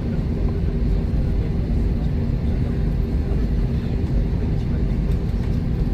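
Airbus A321 cabin noise while taxiing: its IAE V2533-A5 engines at idle thrust give a steady low rumble with a faint steady hum over it, heard from inside the cabin.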